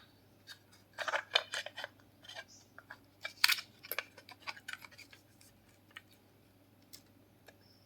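Small plastic parts clicking and rustling as the opened speaker's casing and circuit board are handled. There are two quick clusters of clicks, then a few isolated ticks.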